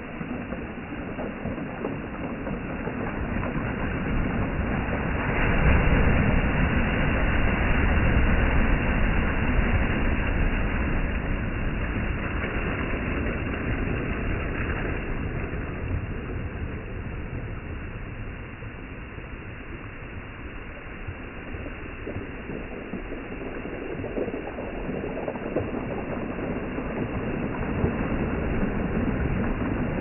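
Black Sea surf: small waves breaking and washing up over a pebble beach. The surf swells loudest about five seconds in, eases off in the middle and builds again near the end.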